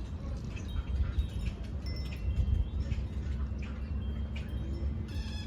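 Birds chirping, with short high thin calls scattered throughout, over a steady low rumble.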